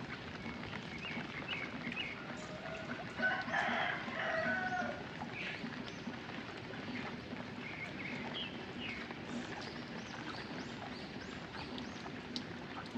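A rooster crows once, about three seconds in, among scattered short chicken clucks and chirps, over a steady hiss of rain.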